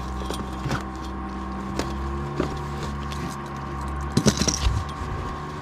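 Scattered knocks and clicks of handling in a fishing boat over a steady mechanical hum, with a brief flurry of clattering about four seconds in.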